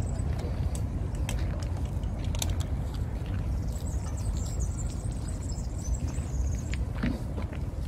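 Outdoor park ambience: a steady low rumble with small birds chirping high-pitched in two spells, around the start and again from about four seconds in, and a few light clicks.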